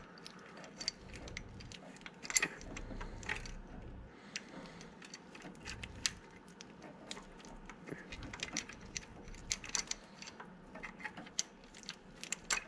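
BMW M30 timing chain handled on its cam gear: loose metal links clinking and rattling against the sprocket as the chain is moved a link at a time to line up the cam timing, a scatter of small irregular metallic clicks with a few sharper ones.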